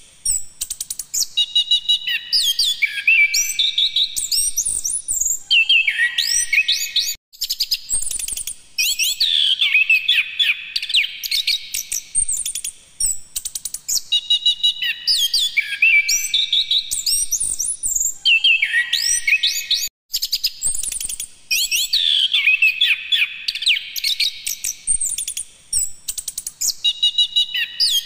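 Chestnut-capped thrush (anis kembang) singing a long, fast run of varied whistled notes that sweep up and down in pitch, broken by two short pauses.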